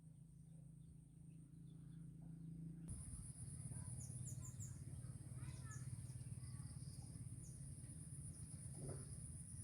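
Outdoor ambience: a steady, high insect buzz like crickets, louder after about three seconds, with short high bird chirps scattered through it.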